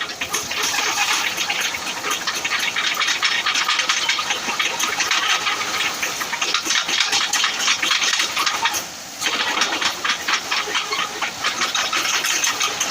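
Komatsu PC78US-6 mini excavator running, its engine and hydraulics giving a steady hissing din with dense rattling and clatter, briefly dipping about nine seconds in.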